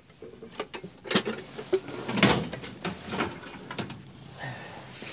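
Combination wrenches clinking and knocking as they are set back into a metal tool chest drawer, with the drawer sliding on its runners.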